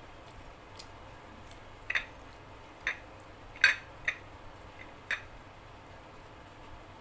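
Five short, sharp, wet clicks from fingers tearing a luchi and dipping it into chicken curry in a small glass bowl, spaced under a second apart. The third click, as the hand reaches into the bowl, is the loudest.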